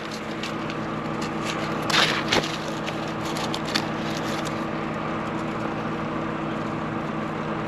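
Dry corn husks and stalk crackling and tearing as a small ear is pulled and peeled by hand, a few sharp crackles, the loudest about two seconds in. A steady engine hum runs underneath.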